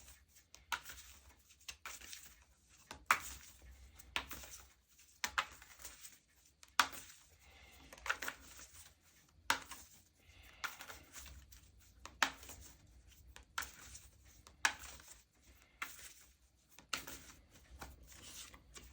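Tarot deck being shuffled by hand: a steady series of soft card slaps and swishes, about one every second or so.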